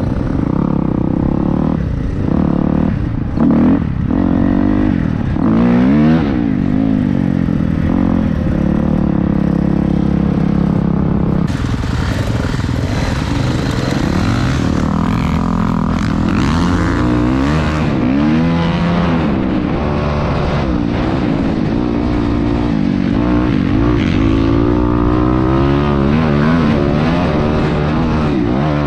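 Dirt bike engine heard close up from the rider's own bike as it rides the trail, its pitch repeatedly climbing and dropping as the throttle is worked and the gears change. The sound changes abruptly about twelve seconds in.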